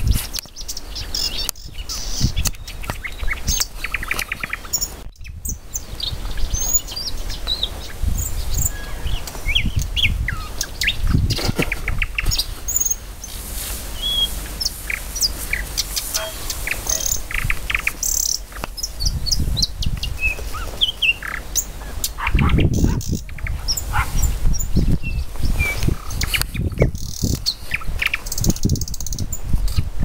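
Thrush nightingale and marsh warbler singing from scrub: many quick, varied high notes, whistles and short rattling trills throughout. Wind rumbles on the microphone underneath.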